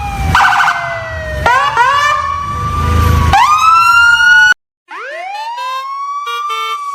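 A siren wailing, its pitch sliding slowly down and then sweeping up again, over a low rumble. It cuts out for a moment about four and a half seconds in, then comes back rising and falling.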